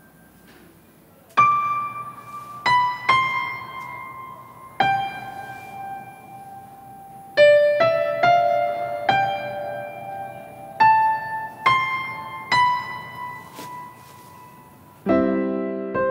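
Slow background piano music: a sparse melody of single notes about a second apart, each ringing out and fading. Near the end, a fuller passage with lower chords comes in.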